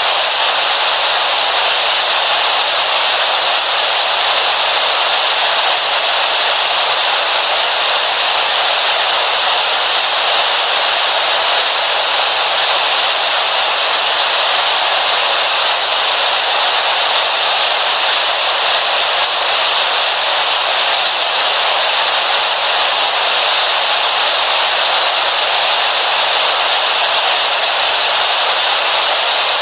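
Television static: a loud, steady hiss with no low end, unchanging throughout.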